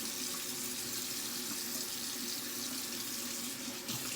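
Bathroom tap running steadily into a sink, shut off near the end.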